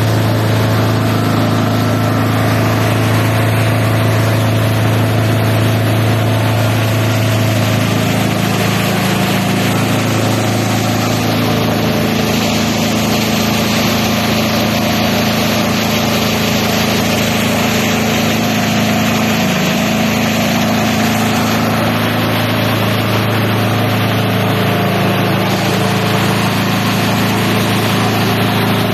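Multi-purpose chopper-shredder machine running steadily: a loud, constant low hum with a dense whirring noise over it, shifting slightly in pitch about eight seconds in and again a little past twenty seconds.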